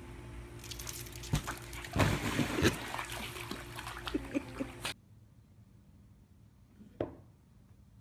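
Swimming pool water splashing and sloshing as a dog swims, loudest about two seconds in. It cuts off abruptly about five seconds in, leaving only a faint background and one light tap a couple of seconds later.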